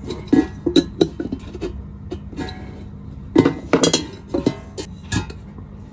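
Metallic clicks and clinks of a screwdriver and fingers working the terminal screws and connectors on a rice cooker's aluminium heating element plate, a scattered run of small knocks with the loudest cluster a little past the middle.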